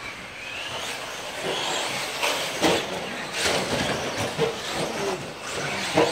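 Radio-controlled stadium trucks racing on a dirt track: motors whining, rising and falling in pitch as they accelerate, over a steady hiss, with several sharp knocks.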